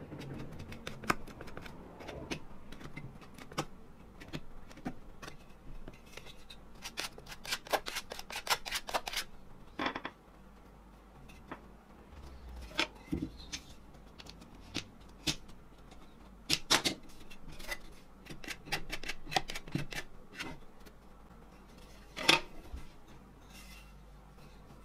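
Hands handling a wooden hand plane body and its small parts: scattered light clicks, taps and scrapes of wood and metal. A quick run of clicks comes about seven to nine seconds in, and a sharper knock about 22 seconds in.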